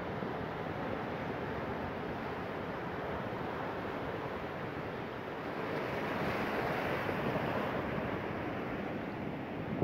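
Ocean surf breaking and washing over a rocky shore: a steady rush of water that swells louder about six seconds in.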